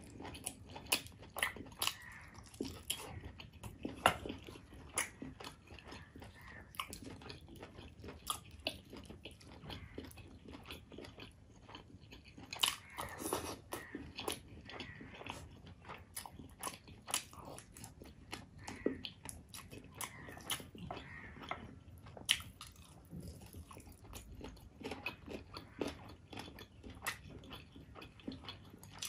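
Close-miked eating: biting and chewing chicken curry eaten by hand, with many irregular sharp mouth smacks and clicks.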